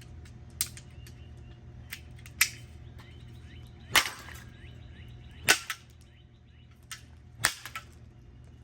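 Aluminum broom handle beating a ceiling fan's housing: about five sharp, hard blows one to two seconds apart, with a few lighter knocks between them. The loudest blows come around the middle.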